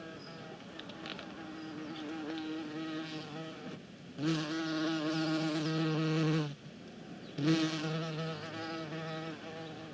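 Bee buzzing in a steady drone, swelling louder about four seconds in for two seconds, dropping away, then swelling again about seven and a half seconds in and slowly fading.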